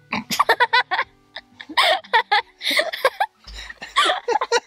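A child laughing in a run of short giggling bursts over background music.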